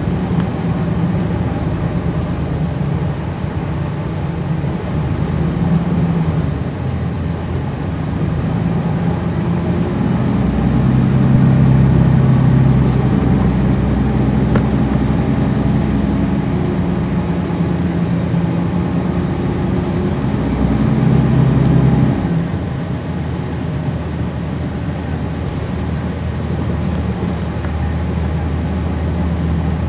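A transit bus's Cummins ISC diesel engine heard from on board. It runs under load with a strong low drone for much of the middle, then drops off suddenly about three-quarters of the way through to a lower, quieter steady hum.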